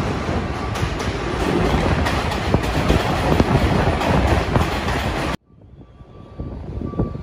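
New York City subway L train running along the tracks, loud, with its wheels clacking over the rail joints. The sound cuts off abruptly a little over five seconds in.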